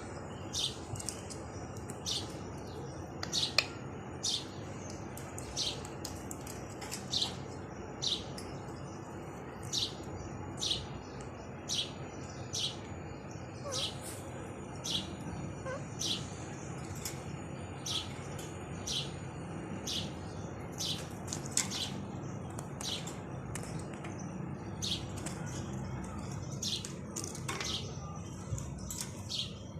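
Indian ringneck parakeets calling: short, shrill calls about once a second, sometimes two close together, over a steady background hiss.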